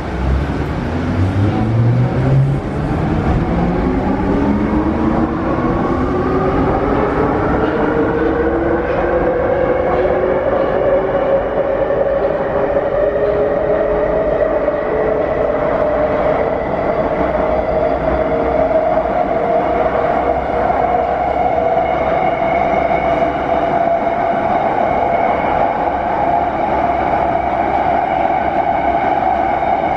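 Wagonmash series 81 metro train accelerating: the traction motor whine climbs steadily in pitch over about twenty seconds, then holds at a steady pitch at running speed, over the rumble of the wheels on the rails.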